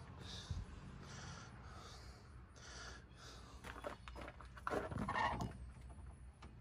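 A man breathing heavily close to the microphone: a run of short breaths, then a louder huff about five seconds in.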